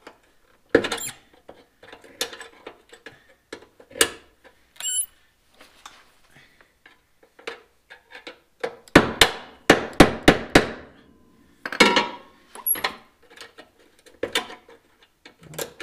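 Hammer striking steel under a car, sharp metallic clanks while a seized leaf spring hanger bolt is driven loose. It starts with scattered taps and clinks, then a quick run of about half a dozen hard blows around nine to eleven seconds in, and a few more after.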